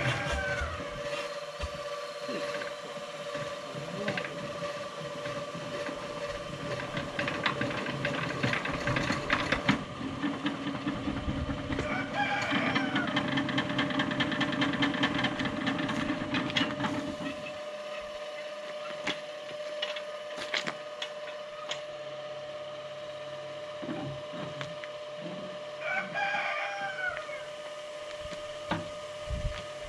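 A rooster crowing three times: once at the start, again about twelve seconds in, and once more near the end, over a steady mechanical hum.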